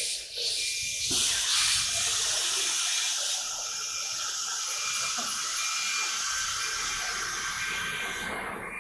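ELE1325 ATC CNC router running, a steady high-pitched hiss with a faint whine in it that sets in about a second in.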